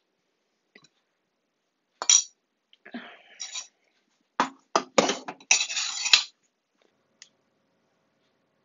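Metal pie tin and oven clattering as the pie goes into the oven: a few knocks, a stretch of scraping metal clatter and a sharp clank about six seconds in. A faint steady hum follows.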